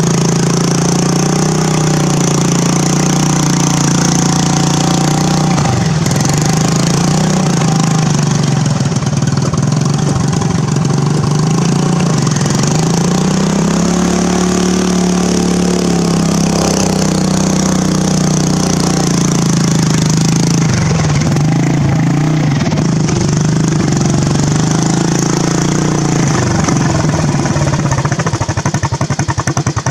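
Briggs & Stratton engine of a modified Poulan riding lawn mower running steadily as it is driven through mud and water, its pitch rising and falling once about halfway through. Near the end it settles to an even idle.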